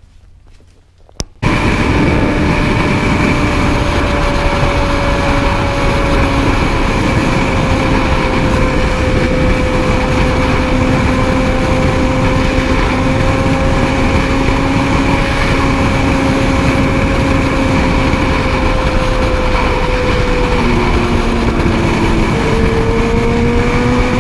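Motorcycle engine running at steady high revs under heavy wind noise, as when riding at highway speed; its pitch sags slowly, drops about 20 seconds in, then climbs again.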